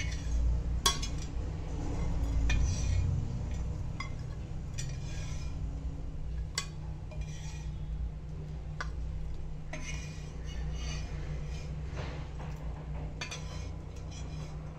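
Metal kitchen utensils clinking and knocking against a pan and plate as fried elephant foot yam slices are lifted out and plated, in irregular clinks every second or two over a steady low hum.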